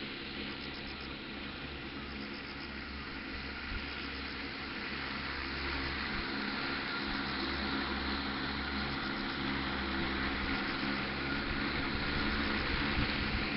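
10-litre multirotor crop-spraying drone in flight: a steady propeller hum with several held tones, growing gradually louder from about halfway through.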